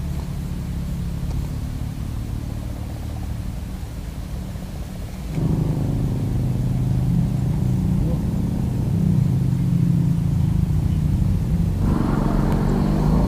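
A motor vehicle's engine running steadily with a low hum, getting louder about five seconds in and louder again near the end.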